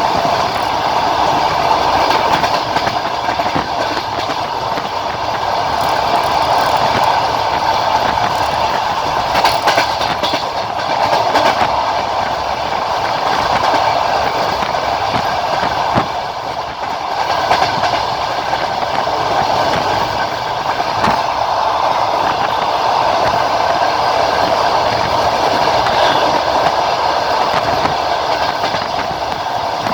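Passenger train running along the line, heard from the carriage: a steady rolling rumble of wheels on rail with scattered clicks of the wheels over the track.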